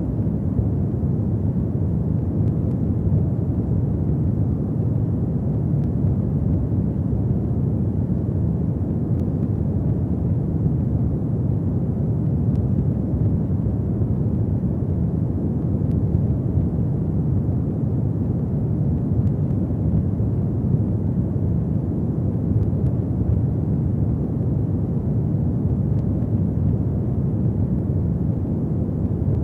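Fireplace fire burning: a steady low rumble with a few faint crackles.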